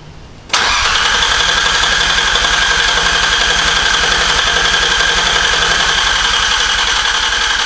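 Nissan RB26DETT twin-turbo straight-six turned over on the starter motor without firing, its cam angle sensor unplugged, cranking to build oil pressure before the first start. The cranking begins abruptly about half a second in and runs on steadily with a fast, even rhythm.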